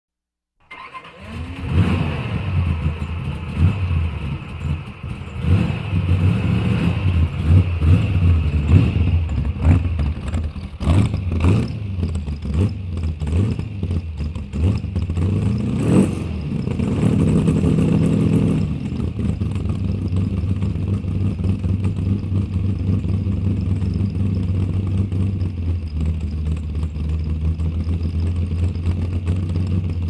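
High-performance car engine cranking and firing up about a second in with a rising flare. It runs unevenly with repeated short revs through the first half, then settles into a steady idle from about two-thirds through.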